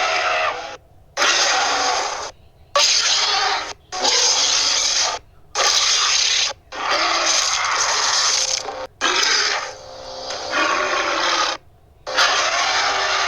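A string of Tyrannosaurus rex roar sound effects: about eight separate roars, each a second or two long, with short silences between them.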